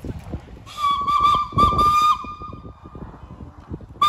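Steam locomotive whistle blown in a wavering run of short toots lasting about a second and a half, then one brief toot near the end.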